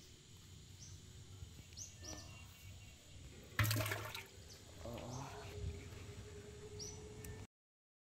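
Caught fish splashing in a bucket of water: one sudden burst of sloshing about three and a half seconds in, over a quiet outdoor background with a few short high chirps. The sound cuts off abruptly near the end.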